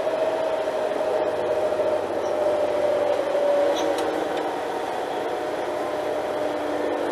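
Alstom Coradia LINT 41 diesel multiple unit running: a steady mechanical drone and whine, its pitch sinking slowly over the first few seconds.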